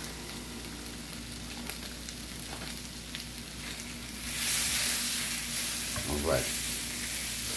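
Bacon strips with sliced bell peppers and onions sizzling in a cast iron skillet. The sizzle swells and grows louder about four seconds in, as the food is stirred with a spatula.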